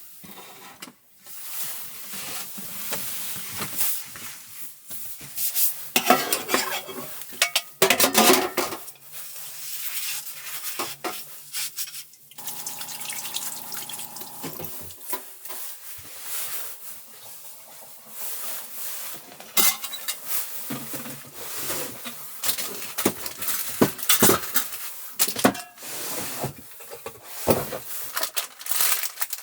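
Cooking sounds: pots, dishes and utensils clinking and knocking, with bursts of hiss like sizzling.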